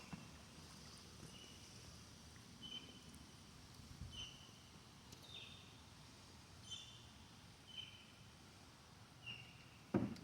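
A bird calls repeatedly with short, high, downward chirps about once a second over a faint outdoor background hiss. Near the end there is one brief, louder knock.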